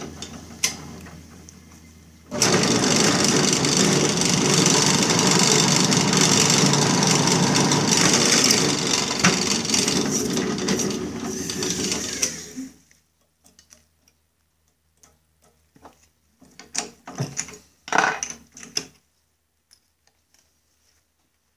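Drill press running and drilling a quarter-inch hole through a Snapper mower's clutch disc: the steady noise of the motor and bit cutting starts about two seconds in, lasts about ten seconds and then stops. After it come scattered metal knocks and clinks as the clamped part is handled.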